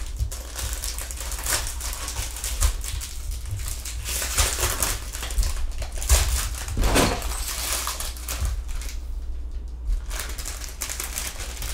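Cardboard and plastic packaging of a Pokémon card box being torn open and handled: an irregular run of crinkling, rustling and small clicks over a low hum.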